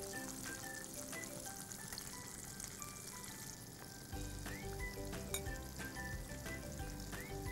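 Flour-coated chicken wings deep-frying in hot oil, giving a steady sizzle with scattered small crackles.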